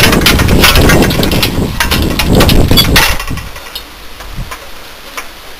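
Wind buffeting the microphone with a heavy low rumble, mixed with clicks and rattles of wiring and sheet-metal parts being handled. The wind drops about three seconds in, leaving occasional light clicks.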